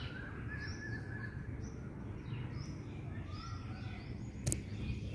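Birds chirping over and over in short falling chirps, with a brief trill in the first second, over a steady low rumble. A single sharp click comes about four and a half seconds in.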